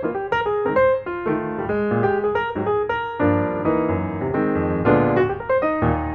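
Background piano music, a steady stream of quick notes over held chords.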